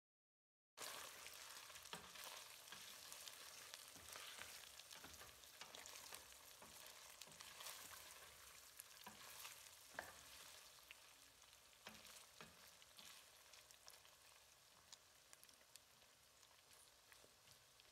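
Cubed beef frying in rendered beef suet in a steel pot, a faint sizzle, while a wooden spoon stirs it with scattered scrapes and knocks against the pot. The sizzle and stirring fade toward the end.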